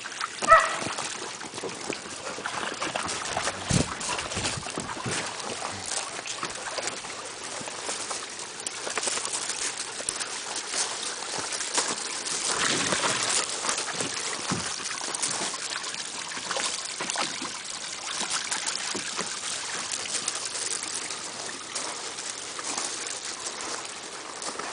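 A dog gives one short bark about half a second in. After it comes a steady splashing and trickling of water from dogs in a plastic kiddie pool, with many small scattered clicks.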